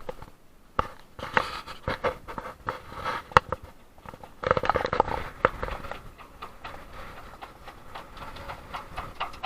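Muffled knocking, scraping and rubbing of a camera handled inside a waterproof case, with a louder rush of noise starting about halfway through.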